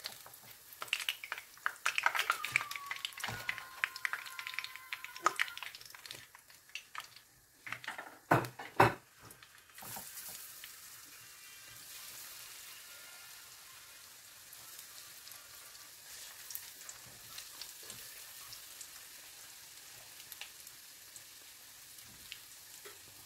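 Korean corn dogs deep-frying in hot oil in a frying pan: steady sizzling and crackling. During the first half, chopsticks click and knock against the pan and skewers as the corn dogs are turned, with two louder knocks a little past eight seconds in.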